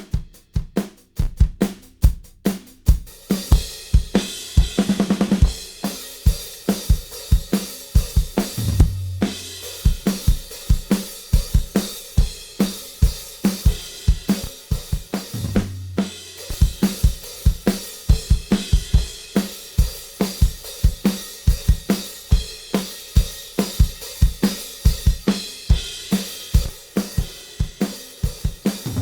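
Recorded acoustic drum kit playing back on a drum bus: kick, snare, hi-hat and cymbals in a steady beat, opening with a quick run of hits and broken up by tom fills every several seconds. It runs through a Z&H Designs V250 EQ with the low end boosted heavily.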